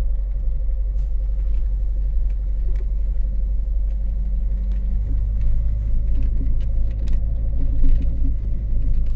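Car driving, with a steady low rumble of engine and road noise and a faint steady hum above it.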